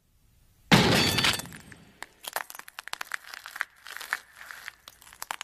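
Cartoon sound effect for a kick to the groin: a sudden crash just under a second in, then a long run of fine cracking and crackling clicks that slowly thin out, like something breaking apart.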